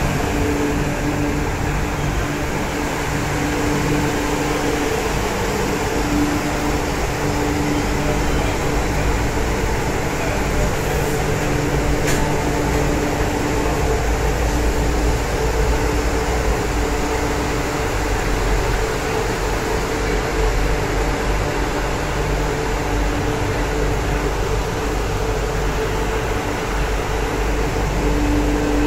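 Steady hum of an MTR Q-train electric train standing at the platform with its doors open, its air-conditioning and auxiliary equipment running, with passengers talking around it.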